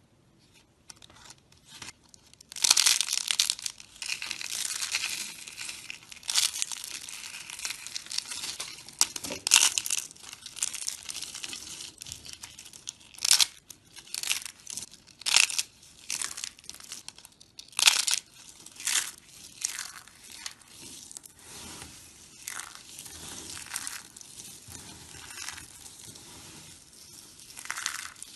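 A knife cutting and scraping through dry bar soap: crackly, crumbly scraping strokes with sharp snapping cracks as pieces break away.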